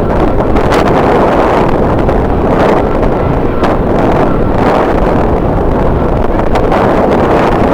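Strong wind blowing across the microphone: a loud, unbroken rush of noise with a low rumble.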